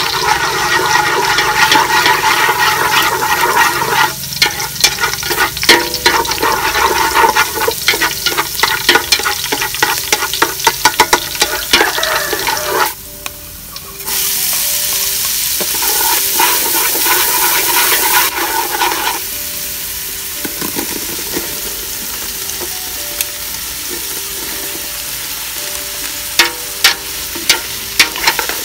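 Hot oil sizzling and crackling in a metal pot over a wood fire while chopsticks stir minced aromatics. About 14 s in, a second load of chopped ingredients goes in with a louder rush of sizzling that eases after a few seconds into a quieter, steady sizzle. Near the end, chopsticks click against the pot.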